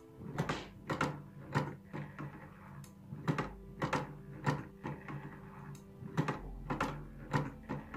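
Small electric motor of a homemade semi-automatic ice-fishing rod running with a steady hum. The plate fixed to its shaft knocks the rod with a regular click about twice a second, which gives the lure its jigging action.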